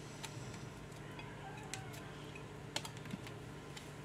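Faint, irregular clicks and taps of a stainless steel hand grater as garlic is grated and scraped off it over a plate, about half a dozen in all, with a low steady hum underneath.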